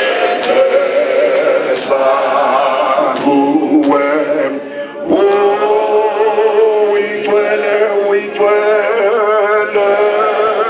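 A group of men singing a hymn together without instruments, in long held notes, with a short break about halfway through before the next phrase.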